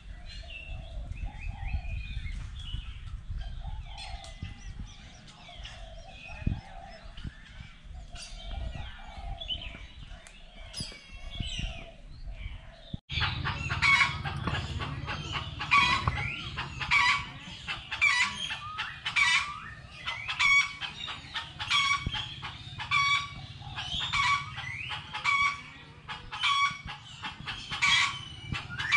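Chickens clucking and crowing. About halfway through it cuts abruptly to a louder, busier stretch of a flock calling, with calls coming about once a second over a steady low rumble.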